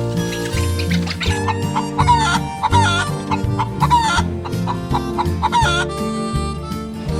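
Chickens clucking in a run of short, hooked calls that start about a second in and stop near six seconds, over a backing music track with a steady bass line.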